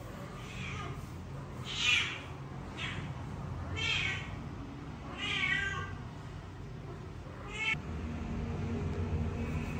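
A cat meowing repeatedly, about six short meows over several seconds, the loudest about two seconds in.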